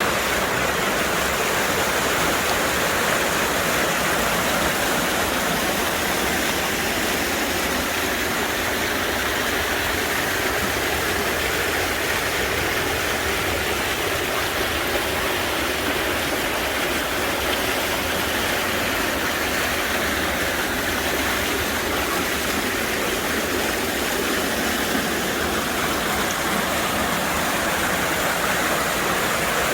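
Mountain stream water rushing and splashing steadily over rocks in a valley, a strong, even rush of water.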